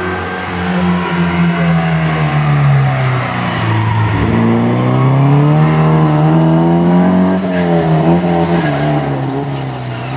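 Historic rally car's engine driven hard along a stage: the pitch falls for the first few seconds as it comes off the throttle, then climbs under acceleration, dips briefly about three-quarters of the way through and climbs again.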